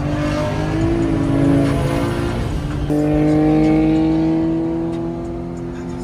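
Car engine accelerating hard at highway speed, heard from inside a moving car. Its pitch climbs steadily, drops at an upshift about three seconds in, then climbs again.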